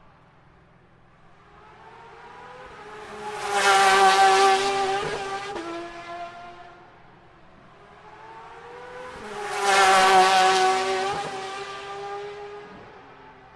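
Two GT Le Mans race cars pass by one after another, about six seconds apart. Each engine note builds, peaks loudly and drops in pitch as the car goes by.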